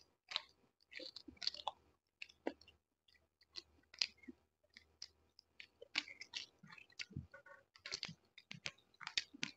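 Close-miked mouth sounds of someone chewing roast chicken: an irregular run of short, wet smacks and clicks with no pauses longer than about half a second.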